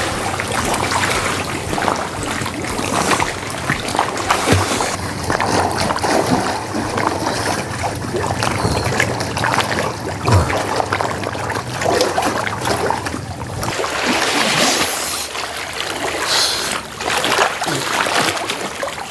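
Water splashing and sloshing as a person swims in a stone-lined well, arms and legs churning the surface, with a continuous patter of small splashes.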